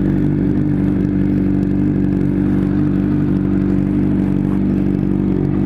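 Honda CBR600RR's inline-four engine idling steadily.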